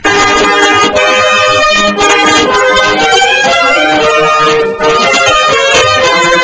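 Loud background music with long held notes, cutting in suddenly.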